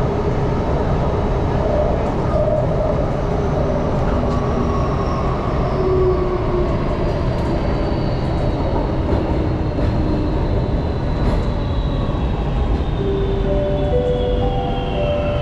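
Singapore MRT North East Line train heard from inside the carriage in a tunnel: a steady rumble of wheels on rail with a high motor whine that falls slowly in pitch as the train slows toward the next station. A few held squealing tones come in near the end.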